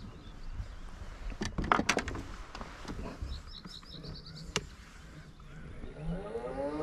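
Knocks and clicks of gear being handled in an inflatable boat, a short run of bird chirps, then an electric trolling motor starting up near the end: its pitch rises and settles into a steady hum.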